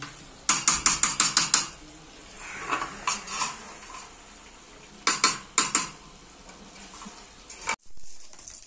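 Metal spoon clinking and scraping against a cooking pan as food is stirred: a quick run of about eight clinks near the start, a few more about three seconds in and two near five seconds.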